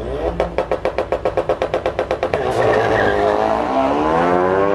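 Drag cars at the start line: an engine held against its rev limiter stutters in rapid pulses, about ten a second, for roughly two seconds, then the cars launch and their engines climb in pitch as they accelerate away.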